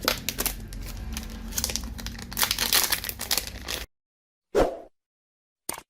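Plastic wrapping crinkling and rustling as it is handled. It cuts off abruptly about four seconds in, followed by a single short knock and a brief click.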